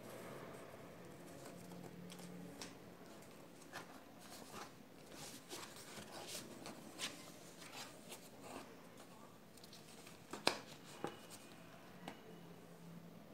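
Card and paper being handled: flaps of a handmade card file page opened and a folded sheet unfolded, with light rustling and scattered small clicks and taps, the sharpest about ten and a half seconds in.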